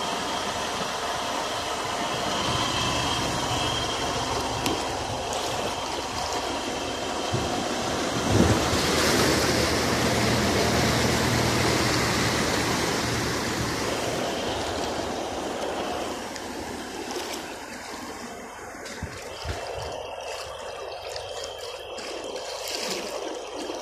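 A pickup truck driving through deep floodwater, its engine running as water rushes and splashes around its wheels. It builds to loudest about a third of the way in with a thump, then fades away after about two-thirds, leaving a steady wash of water.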